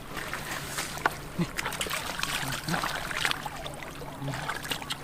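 Hands sloshing and splashing in shallow muddy water, with irregular splashes and drips.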